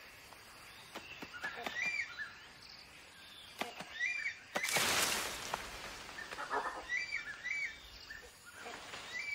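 Tropical forest ambience: a bird repeats a short, high chirping call about five times over other faint bird calls. About five seconds in comes a brief, loud burst of rustling foliage.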